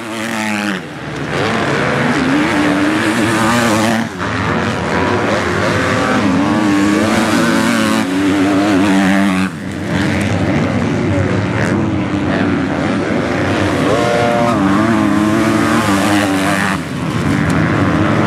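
MX2 motocross bike engines revving hard, the pitch rising and falling repeatedly as they accelerate and back off over the jumps and turns. The sound drops briefly three times.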